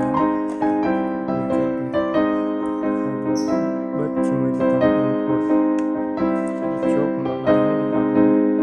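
Background music: electric piano playing a steady sequence of notes.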